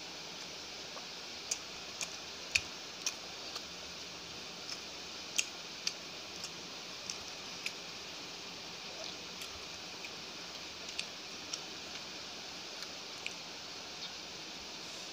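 Eating by hand: irregular small clicks and smacks from chewing and from fingers tearing paratha and scooping curry off a plate, over a steady hiss. The clicks come thickest in the first half.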